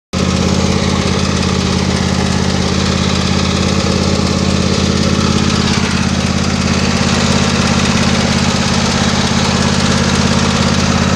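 Briggs & Stratton 24 hp Intek V-twin engine of a Husqvarna YTA24V48 riding lawn mower running steadily at an even speed.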